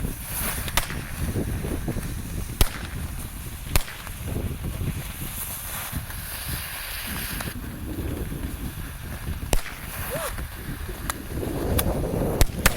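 Novelty firework army tanks going off: a steady hiss and crackle of spraying sparks, broken by about seven sharp bangs from their reports, two of them the loudest a few seconds in.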